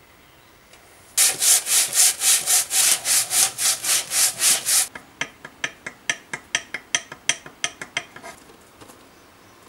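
An aluminium intake manifold flange is being rubbed back and forth on sandpaper to flatten its warped mating face. It makes loud, even rasping strokes, about three and a half a second, then quicker, lighter scrapes that fade out before the end.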